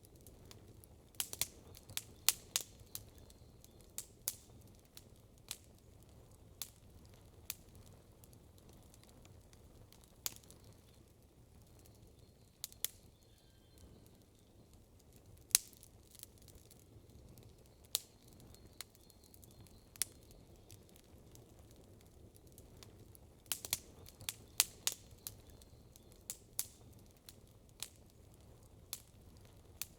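Wood campfire crackling: sharp pops and snaps every second or two, with quick flurries of them about a second in and again about three-quarters of the way through, over a low steady background rumble.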